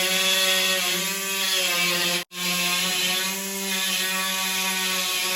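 A power tool running at a steady pitch with a strong hiss, its pitch dipping slightly now and then. It drops out for a moment a little over two seconds in, then runs on.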